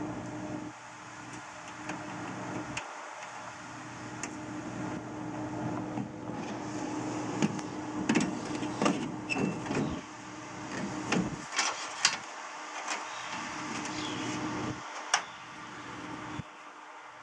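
Hand work on a food truck's sheet-metal wall: snips and a metal frame in the cut opening making scattered sharp clicks and knocks, most of them in the middle, with one loud click near the end. A steady machine hum comes and goes underneath.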